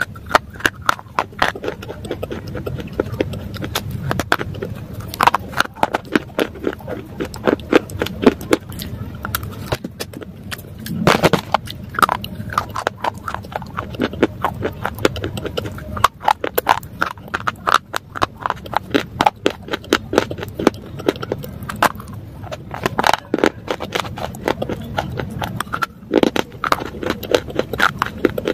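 Dry grey clay being bitten and chewed close up: repeated runs of sharp, brittle crunches, grouped into clusters with short pauses between bites.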